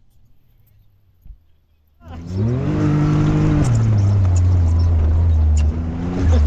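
Can-Am Maverick X3 Turbo RR's turbocharged three-cylinder engine revving hard about two seconds in: the pitch climbs, holds briefly, then drops back to a steady heavy drone under a loud rushing noise.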